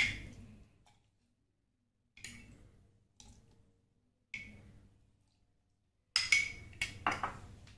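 A spoon clinking and knocking against a tall glass as a falooda layer is spooned in: about five or six separate taps, each with a short glassy ring.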